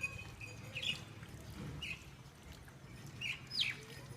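Birds chirping with short, high calls, roughly one every second, over a low steady background hum.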